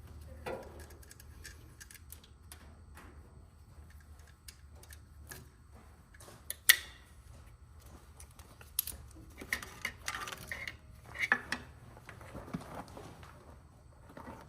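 Scattered clicks, clinks and knocks of tools and parts being handled, with one sharp knock about halfway through and a busier cluster a few seconds later, over a steady low hum.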